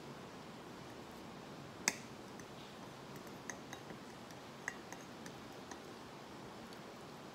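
A metal fork clicking and tapping against a plate while twirling spaghetti: one sharp click about two seconds in, then several lighter clicks over the following few seconds, over a low steady room hiss.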